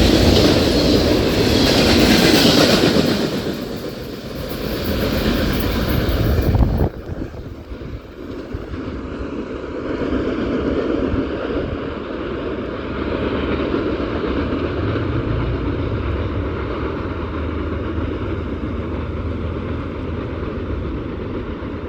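CN train passing at speed, its wheels clicking over the rail joints. About seven seconds in the sound drops suddenly, and a quieter, steady rumble carries on.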